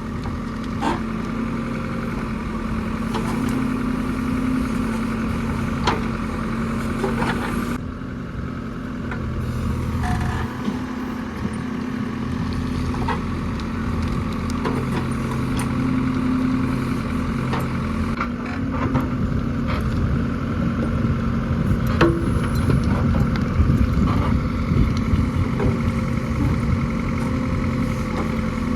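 A JCB 3DX backhoe loader's diesel engine running and working, rising and falling in load, with a few sharp knocks scattered through.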